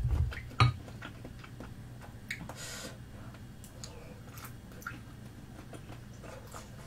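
Chopsticks knocking and clicking against a soup bowl as food is picked out, two sharper knocks near the start, then scattered small clicks and soft eating noises.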